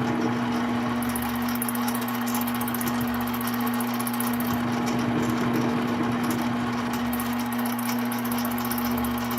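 Mini lathe running with a steady, even motor whine while the end of a threaded rod is faced off.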